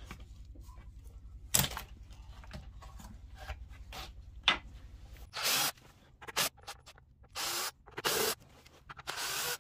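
Cordless drill-driver spinning in four short bursts in the second half, backing out the screws of an old hard drive's metal cover. Before that, a couple of sharp knocks as the heavy drive is handled and turned over.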